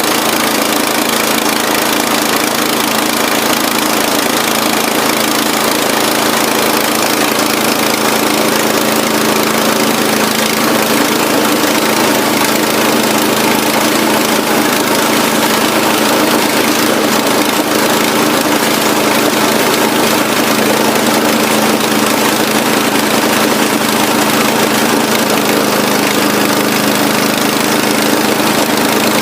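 Remote-controlled lawn mower's engine running steadily at an even speed.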